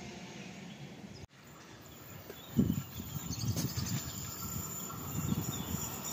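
Outdoor ambience: an uneven low rumble with faint bird chirps above it, broken by an abrupt cut about a second in and a short bump a little later.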